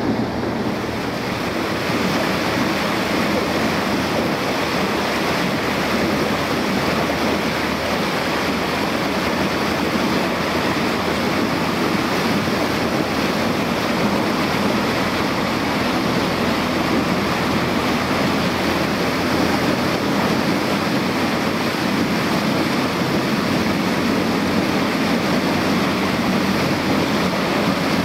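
Small motorboat under way: its engine running steadily, with water rushing along the hull and wind buffeting the microphone.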